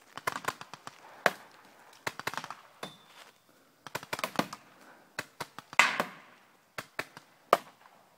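Paintball marker firing in short rapid strings of sharp pops, about five strings separated by brief pauses.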